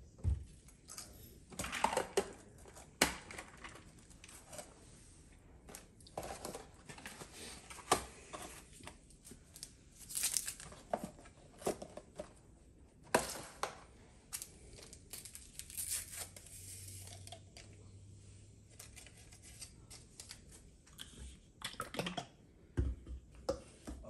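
Paper sweetener packets being handled and torn open, with crinkling and scattered light clicks and knocks of items picked up and set down on a stone countertop.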